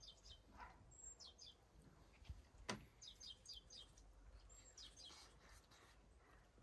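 Faint bird song: several short runs of quick, high chirps. A single sharp click a little before the middle is the loudest sound.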